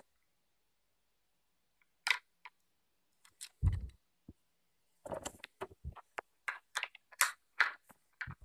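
Hard plastic toy parts clicking and knocking as a toy excavator's arm and bucket are worked by hand. There is one duller thump about three and a half seconds in, then a run of quick clicks in the second half.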